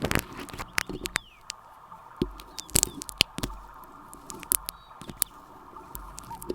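Glue being worked for ASMR: irregular sticky clicks and crackles, with a few louder snaps near the middle.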